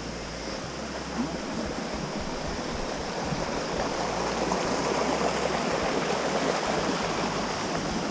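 Steady rush of a mountain stream, growing a little louder partway through.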